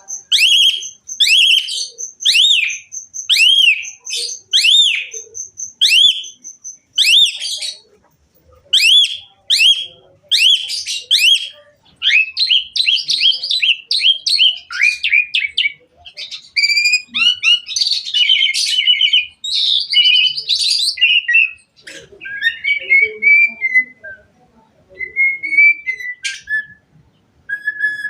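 Asian pied starling (jalak suren) singing: a run of loud arching whistled notes about every half second with a steady high tone under them for the first seven seconds, then a fast chattering passage and varied calls. The song is full of mimicked phrases.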